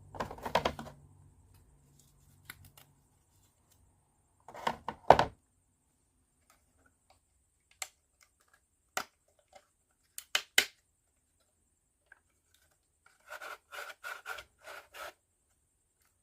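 Small clicks and knocks of plywood kit parts being handled and pressed together as the winding handle is fitted. There are two louder knocks about five seconds in, scattered single clicks after that, and a quick run of clicks near the end.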